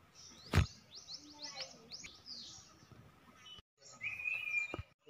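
Small birds chirping: a quick run of short, high, falling chirps, then a steady high whistle near the end. A single sharp click, the loudest sound, comes about half a second in.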